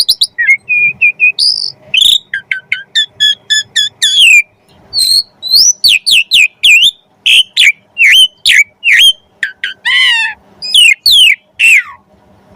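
Asian pied starling (jalak suren) singing a fast, varied run of loud whistles, chirps and sliding notes, its song full of mimicked phrases (isian).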